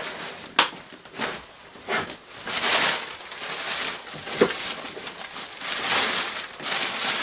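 Black plastic bag rustling and crinkling as items are pushed into it, with a few sharp knocks of things being handled.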